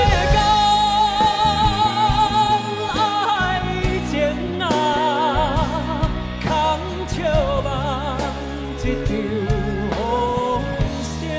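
Male vocalist singing a slow ballad over live band accompaniment, holding long notes with a wide vibrato.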